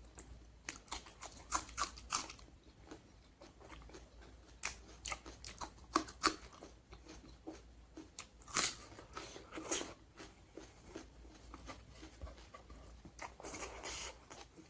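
Close-miked eating: a person chewing and biting through a meal of pork curry with onion and salad, a steady run of sharp crunches and mouth clicks, with louder bunches of crunching a little past halfway and near the end.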